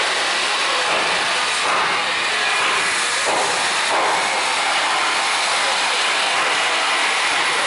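A steady, even hiss of outdoor background noise, with faint brief sounds that may be distant voices about two and four seconds in.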